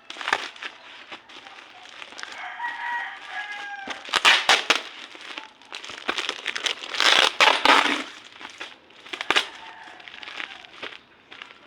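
Plastic and paper packaging crinkling and rustling as books are unboxed, in loud bursts about four seconds in and again around seven to eight seconds. A drawn-out pitched animal call sounds in the background about two to three seconds in.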